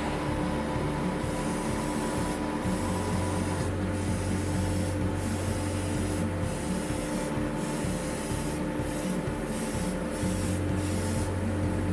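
Airbrush hissing as it sprays a thinned flat clear lacquer coat in short passes, the hiss briefly dropping away about once a second between passes, over a steady low hum.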